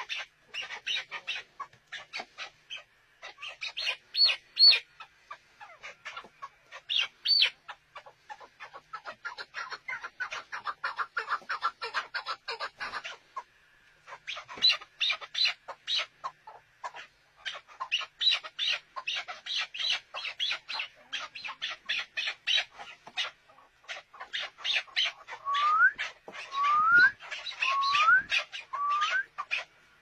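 Chukar partridges calling: long runs of rapid, clucking chuk notes repeated several times a second. Near the end come rising whistled notes about once a second.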